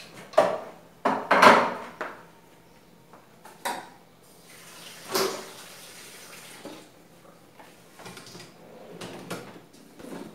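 Dishes, pots and cutlery clattering and clinking as they are handled at a kitchen sink: a few separate knocks, the loudest about a second and a half in.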